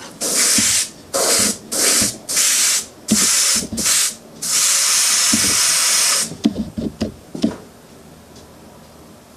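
Airbrush hissing in seven bursts of compressed air as its trigger is pressed and released, the last burst held for nearly two seconds, during test spraying while the needle is being adjusted. A few light knocks follow as it is handled.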